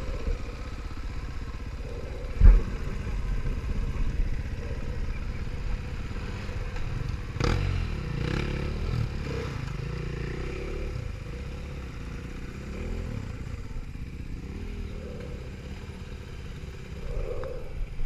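Enduro dirt bike engines running and revving unevenly, with a sharp knock a couple of seconds in and another near the middle.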